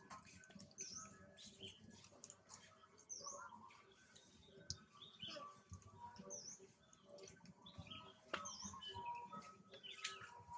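Faint, short high-pitched chirps, one every two to three seconds, with a few soft clicks in between.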